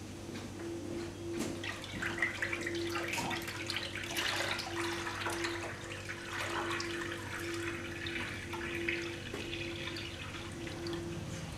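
Milk pouring from a plastic jug into a stainless steel pot of milk, a splashing pour that carries on for several seconds and tails off near the end. A faint low hum pulses on and off steadily underneath.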